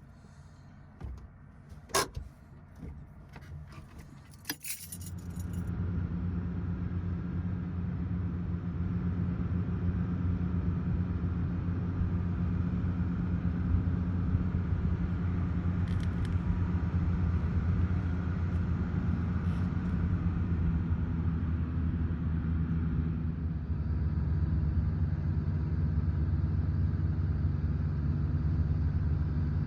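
Keys rattling and a few clicks, then about five seconds in the Renault 4 GTL's four-cylinder engine starts and runs steadily for the rest of the time.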